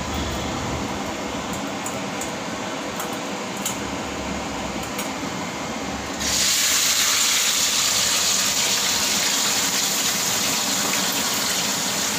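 Low steady background noise, then about six seconds in a sudden loud sizzle as a handful of turmeric-and-salt-marinated prawns is dropped into hot oil in a kadai; the prawns keep frying with an even, steady sizzle.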